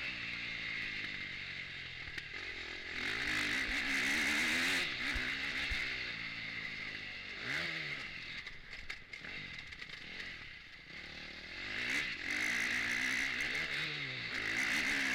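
KTM 250 four-stroke motocross bike's engine, heard from on board, revving up and down as the rider works the throttle and gears around a dirt track. It is at its loudest in two long stretches of throttle, around a few seconds in and again near the end, and eases off in between.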